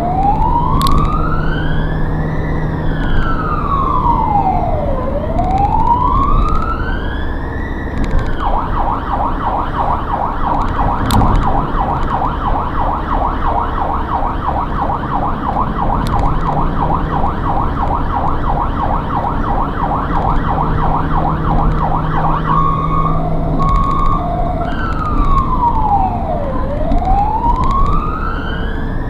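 Hungarian ambulance siren heard from inside the vehicle over engine and road noise: a slow wail rising and falling about every two and a half seconds, which switches about eight seconds in to a fast yelp, then after a few short alternating tones goes back to the slow wail near the end.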